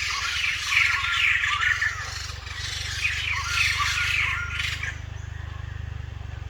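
White-crested laughingthrushes calling, a dense run of rapid, overlapping chattering notes that stops about five seconds in. A steady low hum runs underneath.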